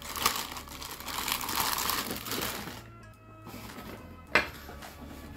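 Clear plastic bag crinkling as a ceramic coffee dripper is pulled out of it, dying away after almost three seconds, then a single sharp knock a little past four seconds in as the dripper is handled on the wooden table. Background music plays underneath.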